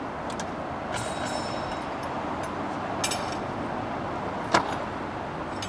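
Steady outdoor vehicle hum with a few light metallic jingles and clinks, and one sharp knock about four and a half seconds in.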